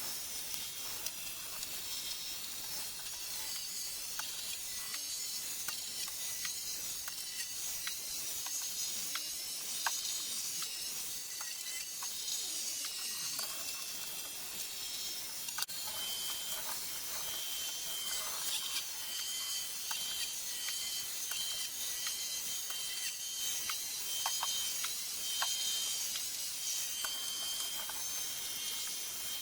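Xiaomi Mi Robot Vacuum Mop 1C running in a sixteen-fold time lapse: a steady high hiss full of rapid small clicks and rattles as it picks up confetti.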